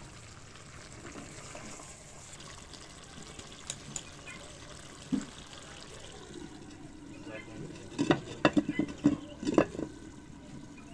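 Metal spatula stirring potatoes and cauliflower in a clay pot over a faint sizzle, then the painted clay lid set on the pot. Near the end it clinks and knocks against the clay rim several times in quick succession as it is settled.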